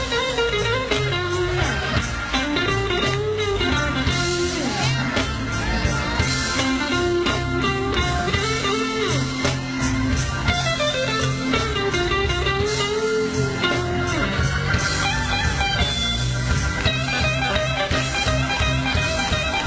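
Live gospel band playing an instrumental passage of the song with no one singing: a melodic lead line bending up and down over steady bass and a regular beat.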